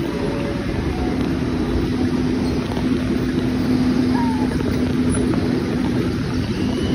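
Pteranodon Flyers suspended ride car climbing its lift: a steady rumble of the moving car and ride machinery, with a steady mechanical hum from about a second in.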